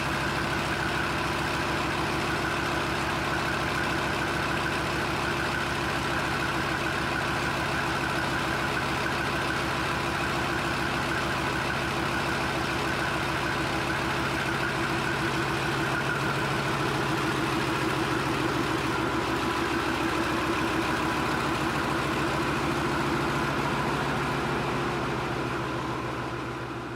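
Restored 37.4-litre MTU V10 diesel engine of a Bergepanzer recovery vehicle running steadily and smoothly after repairs to eliminate its leaks, the sound fading out near the end.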